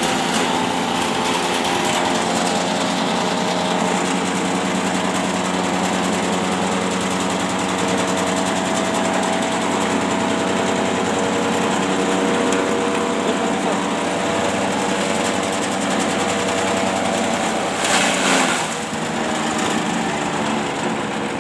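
Grass chopper driven by an Ossel GX160 5.5 hp single-cylinder four-stroke petrol engine, running steadily at speed while its blades shred grass. There is a short, louder rush of chopping about eighteen seconds in, and the engine note shifts slightly afterwards.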